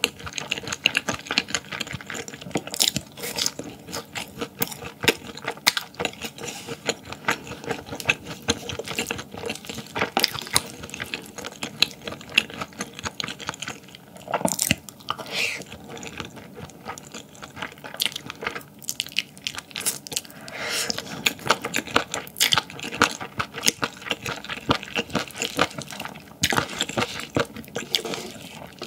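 Close-miked eating: wet chewing and smacking mouth sounds, a rapid irregular run of small clicks and squelches, with a few louder bursts.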